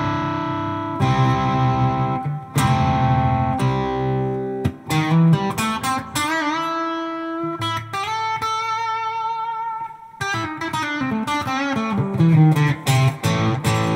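Fender Telecaster electric guitar played through a Mooer Hustle Drive overdrive pedal into a Fender '65 Deluxe Reverb amp, with no compressor or booster in the chain: a lead phrase of picked notes, with bent, wavering vibrato notes in the middle. The overdrive sounds very bright, with a little fizz.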